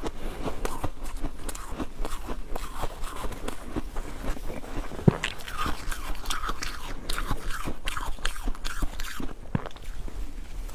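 Ice being bitten and chewed close to the microphone: a steady run of crunches and crackles, with one sharp, loud crack about five seconds in.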